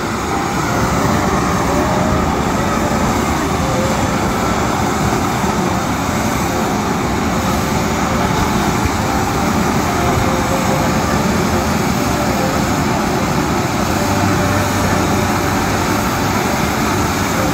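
Bamboo-tube fountain firework spraying sparks: a loud, steady rushing hiss that holds without a break.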